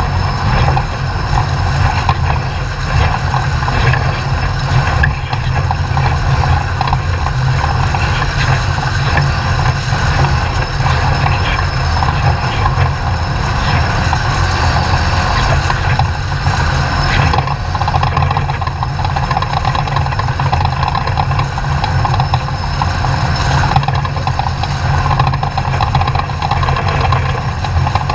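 Class 2000 off-road race truck running steadily while driving, engine and drivetrain noise continuous and loud.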